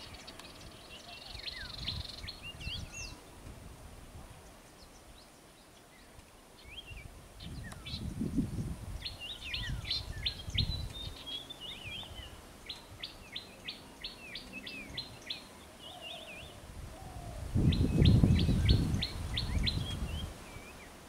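Birds chirping and calling, with quick runs of short repeated notes, over the open-air background. Near the end a louder, low rumbling noise swells up for about two seconds.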